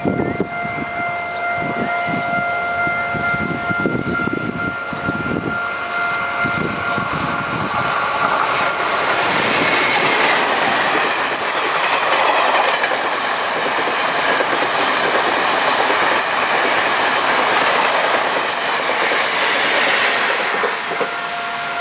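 Taiwan Railways E1000-series push-pull Tze-Chiang express passing, its passenger cars rolling by with wheels clacking over the rail joints, then a louder rush of wheel and air noise from about a third of the way in. A level-crossing warning bell rings steadily at first, is drowned out by the passing train, and is heard again near the end.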